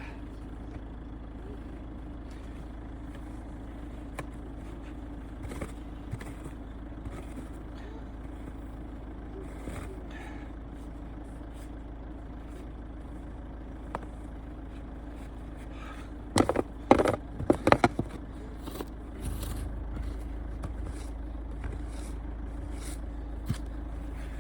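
A car driving, with a steady low engine and road rumble. About sixteen seconds in comes a quick cluster of loud knocks, and a couple of seconds later the low rumble grows louder.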